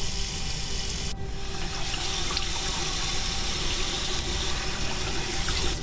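Water running from a push-button bathroom tap into a ceramic sink: a steady rush that turns brighter and splashier about a second in.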